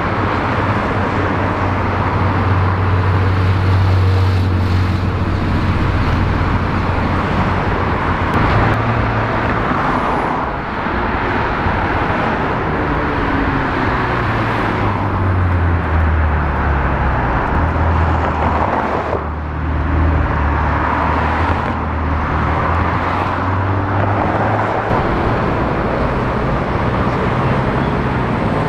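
Cars' engines and street traffic, in several clips joined by abrupt cuts about ten and nineteen seconds in. A low, steady engine hum runs under road noise, with engine pitch rising and falling now and then.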